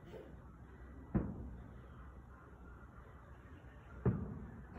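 Distant aerial fireworks bursting: two booms, about a second in and near the end, each dying away over a second or so.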